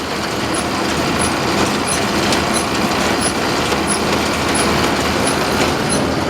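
New Holland 650 round baler running empty under tractor power, its new belts and rebuilt rollers turning with a steady machine noise and a short high chirp about every two-thirds of a second. It is running pretty quiet for a baler of its kind.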